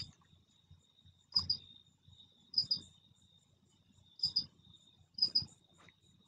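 Crickets chirping: a steady high trill with louder paired chirps coming every second or so.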